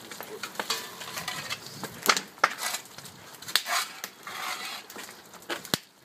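Irregular scraping and clinking of tools against the steel angle-iron pouring chute and mold during a molten lead keel pour, with several sharp knocks about two to three and a half seconds in and a brief hiss about four and a half seconds in.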